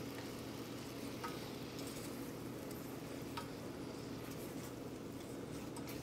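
Strawberries, brown sugar and butter sizzling faintly in a hot stainless saucepan while a wooden spoon stirs them, with two light spoon clicks against the pan.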